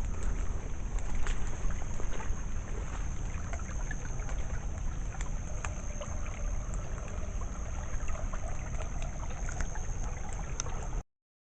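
Rainwater running after heavy rain, a steady rushing noise with a low rumble of wind on the microphone and scattered faint ticks. It cuts off to silence about eleven seconds in.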